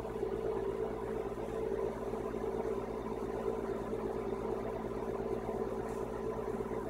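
A steady mechanical hum with an even hiss, unchanging in pitch and level.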